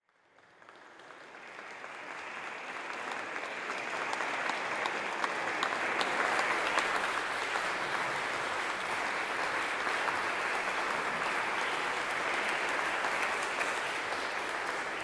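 Audience applauding, building up over the first few seconds and then holding steady.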